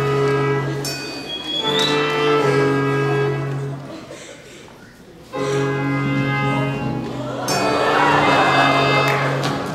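Live pit orchestra playing held, sustained chords for a stage musical, breaking off briefly near the middle and then starting again.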